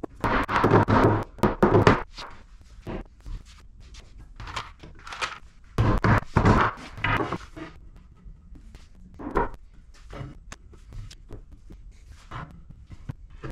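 Rubber mallet tapping a wooden rail to seat its joint, with wooden rails knocking as they are handled. The knocks come in two dense clusters, about a second in and again around six seconds, with lighter scattered knocks between.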